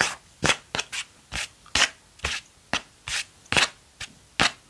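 A quick, uneven run of short, sharp scratching strokes on a hard object, about three a second.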